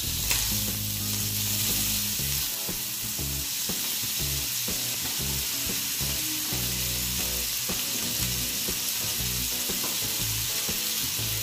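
Diced chicken frying in hot butter in a non-stick pan: a steady sizzle, with a wooden spatula stirring the pieces near the end.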